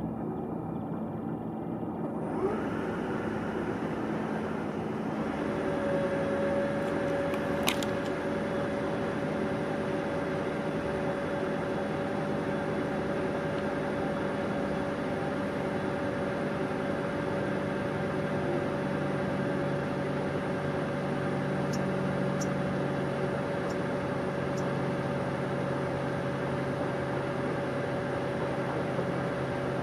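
Steady distant engine rumble, joined about six seconds in by a steady whine, with one sharp click about eight seconds in.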